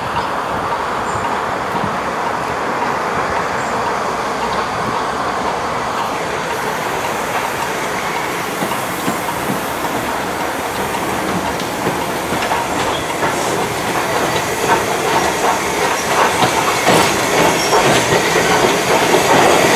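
Southern Railway Lord Nelson class steam locomotive 850 running tender-first into the station. It grows louder as it nears, and over the second half its wheels click over the rail joints.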